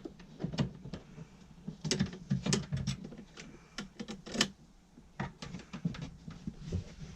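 Irregular light clicks and knocks of metal pipe and fittings being handled, with a sharper cluster about two seconds in and another knock a little past the middle.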